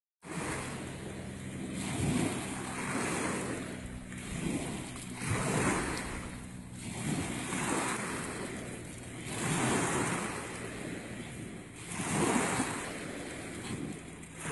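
Small lake waves washing onto the shore, the wash swelling and falling every couple of seconds, with wind buffeting the microphone.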